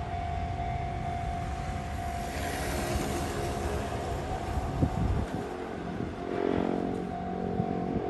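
Motor scooter passing close by and riding away down the hill, its small engine running, over a low rumble of wind on the microphone. A steady tone sounds throughout.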